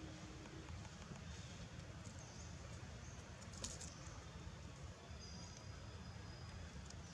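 Quiet outdoor ambience: a steady low rumble and hiss, with one short click a little past the middle and a faint thin high tone around five seconds in.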